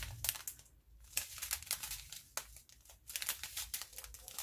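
A strip of small clear plastic bags of diamond painting drills crinkling as it is handled, a run of irregular crackles with a short lull about a second in.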